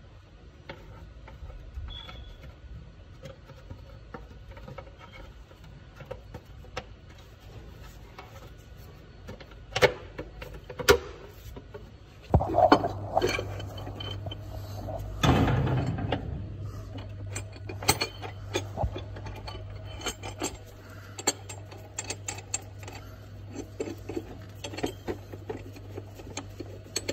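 Hand tools and metal engine parts clinking and knocking, with the loudest knocks between about ten and sixteen seconds in. A steady low hum comes in at about twelve seconds.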